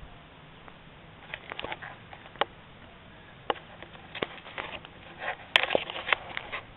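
Irregular crunching steps and clicks on gravel, with bumps from the handheld camera, growing denser and louder towards the end, where the sharpest click falls.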